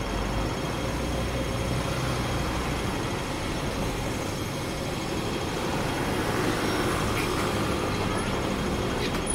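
Street traffic at a busy junction heard from aboard a stopped tram: double-decker buses and a lorry driving past, with a deeper engine rumble in the first half and steady engine and tyre noise throughout.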